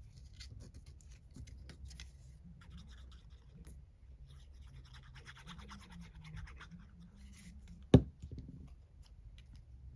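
Faint scratching and rubbing of paper as small paper pieces are handled and placed on a craft project, with one sharp tap about eight seconds in.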